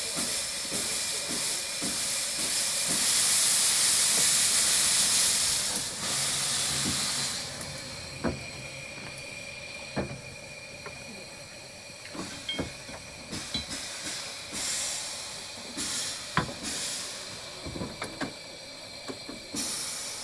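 Steam hissing from the small steam locomotive River Irt as it stands on a turntable, loudest for a few seconds early on, then softer with brief surges, broken by scattered sharp knocks.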